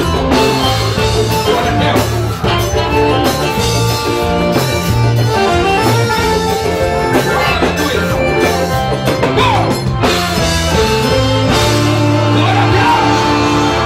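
Live gospel band playing a song: electric guitars, accordion, bass guitar and drum kit.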